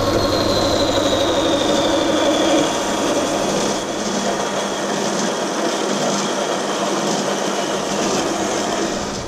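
Small horizontal metal-cutting bandsaw running and cutting through a brazed aluminium test piece, with a steady whirr and a high whine that falls slowly in pitch over the first few seconds.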